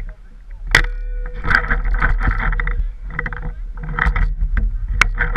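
Footsteps on pine needles and gear rustling as a paintball player moves on foot, in uneven bursts, with a low rumble of handling on the camera. Two sharp cracks stand out, about a second in and near the end.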